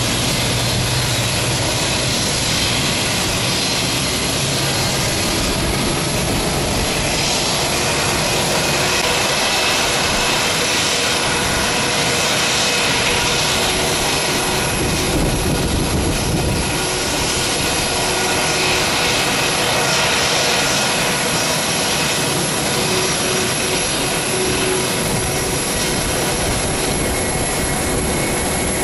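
Airbus A320 jet airliner taxiing, its turbofan engines running at taxi power: a steady rushing noise with a high whine held over it.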